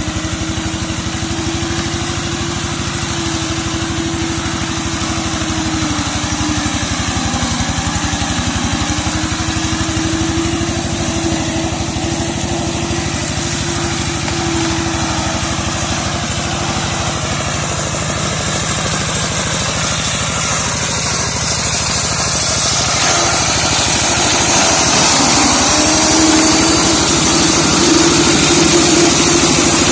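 Single-cylinder diesel engine of a two-wheel hand tractor running steadily while it drives a slasher mower through undergrowth, its pitch dipping briefly a few times; it grows louder near the end.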